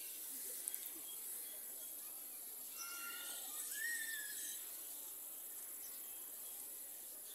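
Quiet open-air garden ambience: a steady high hiss, with a few faint distant calls and one short rising-and-falling whistled note about four seconds in.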